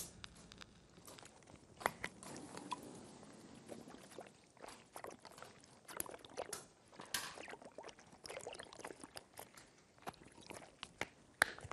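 Men drinking from sports shaker bottles and through a straw: scattered gulps, slurps and swallows with small clicks of bottle handling, after a sharp clack from a film clapperboard right at the start.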